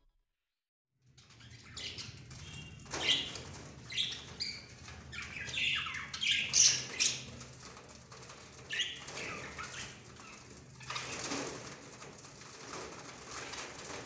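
A group of caged budgerigars chirping and chattering, with rustling and wing flutters, starting about a second in.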